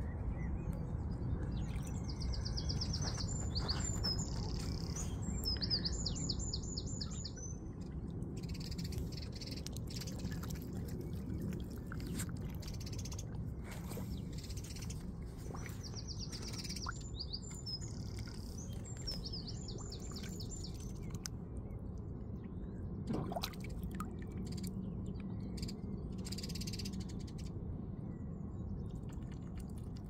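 A small songbird singing a high, quickly trilled phrase twice, about three seconds in and again about fifteen seconds in, over a steady low background rumble.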